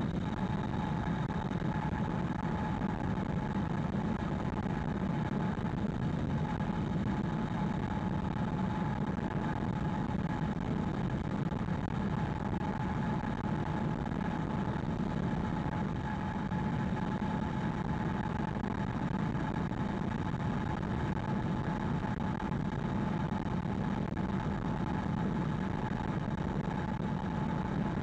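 Steady road and tyre noise heard inside the cabin of a 2020 Hyundai Ioniq Electric cruising at expressway speed. A faint steady whine sits above the low rumble.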